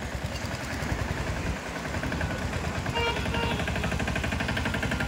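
Mini tractor's small diesel engine running steadily as the tractor drives and turns at low speed.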